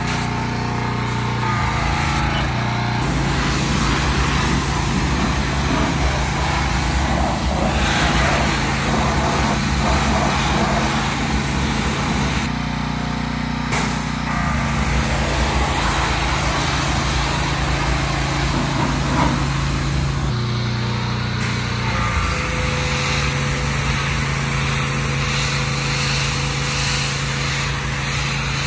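Gas pressure washer's Honda engine running steadily under load, with the hiss of the high-pressure water jet from the spray wand. The spray hiss breaks off briefly twice, and the engine note shifts when it does.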